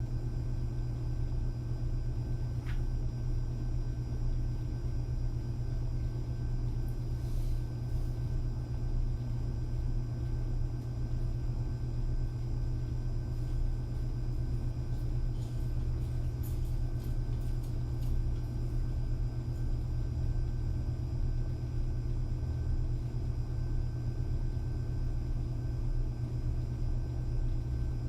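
Quiet room ambience: a steady low hum, with a few faint clicks and rustles of someone moving about in the background, scattered through the first two-thirds.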